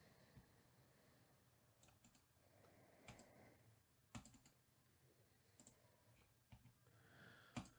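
Faint, scattered clicks of a computer mouse and keyboard, a handful of separate clicks over several seconds against near silence.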